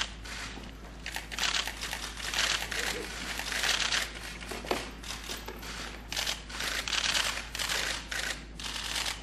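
Press photographers' camera shutters clicking in rapid, overlapping bursts that swell and fade about once a second.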